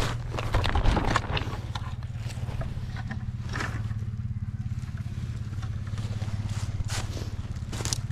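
Plastic sap bag rustling and a sap bucket being handled in the first second or so, then footsteps crunching through snow and dry leaves, over a steady low mechanical drone like an idling engine.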